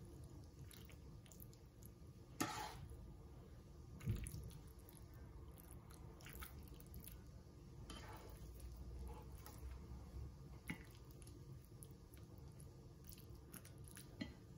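Faint, scattered clicks and scrapes of a plastic slotted spatula against a frying pan and a serving dish as omelette is scooped out and served, the loudest knock about four seconds in, over a low background hum.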